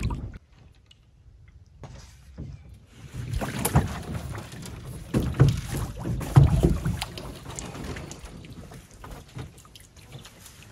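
A canoe being paddled: water swishing off the paddle in a few surging strokes, with wind rumbling on the microphone. The sound starts after a few nearly quiet seconds and thins to faint dripping and splashes near the end.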